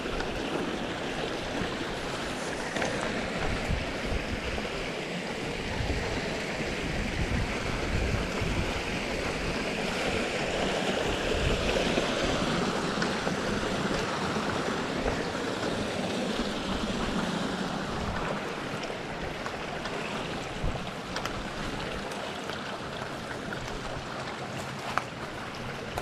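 Mountain stream running, a steady rush of water that grows louder through the middle and eases off later, with one sharp click near the end.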